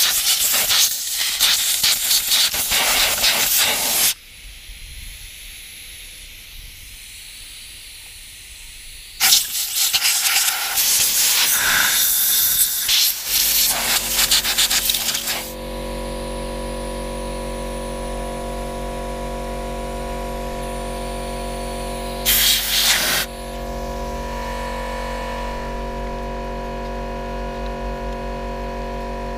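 Compressed-air blow gun blasting dirt and grime off a lawnmower engine around the carburettor, in a long hissing blast of about four seconds, another of about four seconds after a pause, and a short one near the end. About halfway through, an air compressor's motor starts and runs with a steady hum.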